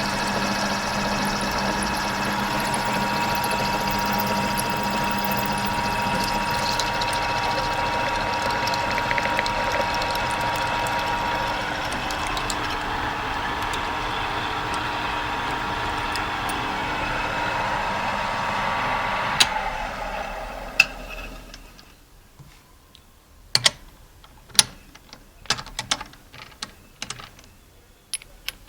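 Small electric motor of a homemade mini metal lathe running at a steady speed, then switched off and winding down about twenty seconds in. After that come a series of light, sharp metallic clicks and clinks.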